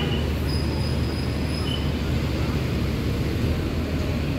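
Large diesel bus engine idling steadily with a constant low rumble, and a faint high whistle over it for about a second near the start.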